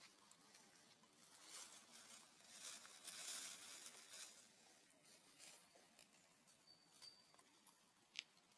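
Near silence with faint rustling and scratching, a little stronger a few seconds in, and one short high squeak near the end.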